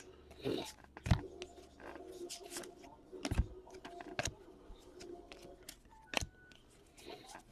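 Trading cards being handled and flipped through by hand: scattered light clicks and taps.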